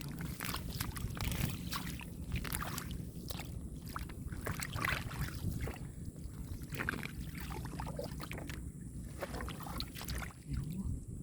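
Irregular sloshing and splashing of hands working through shallow muddy water and waterweed, with scattered wet slaps and squelches, over a steady low rumble.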